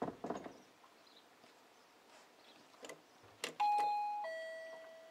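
Two-tone ding-dong doorbell chime, a high note stepping down to a lower one that rings and fades. It is set off by a click about three and a half seconds in as a dog presses the ball-shaped doorbell button with its nose. A short rustling burst comes near the start.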